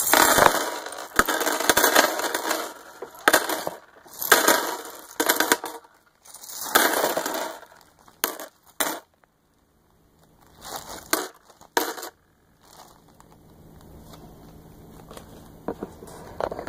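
Real seashells dropped by the handful and clattering onto a hard surface, in about six separate bursts with short pauses between, fading to faint rustling near the end.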